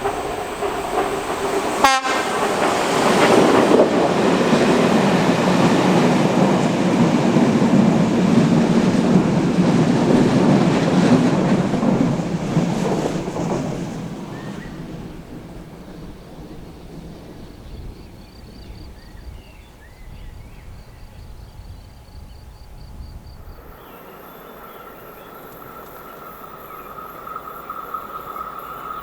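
Passenger train rolling past at speed, a loud steady rumble of wheels on rail that fades away over a few seconds about halfway through. Near the end the sound cuts to a quieter scene with a faint steady tone.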